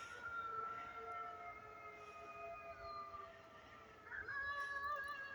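A chorus of howling wild canines: several long, held howls overlapping at different pitches. About four seconds in, a new pair of higher howls rises in.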